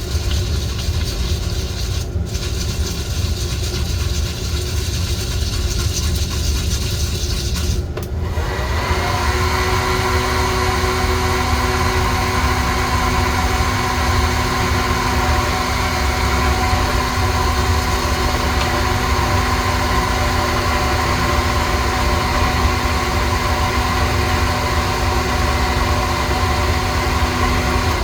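Coffee roaster running with a steady mechanical drone from its motor and fan. About nine seconds in, a second steady, pitched motor hum starts and holds.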